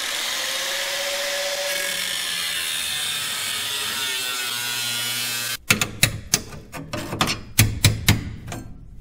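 A power tool cutting the truck's sheet-metal cab runs steadily with a high, hissing noise whose pitch sinks slightly, then stops suddenly about five and a half seconds in. It is followed by a run of irregular sharp metal knocks and clanks.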